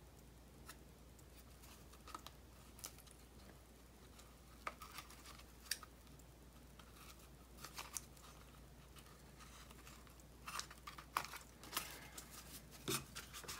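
Faint rustling and small clicks of hands working yarn over the pegs of a cardboard toilet-paper-tube loom, growing busier near the end.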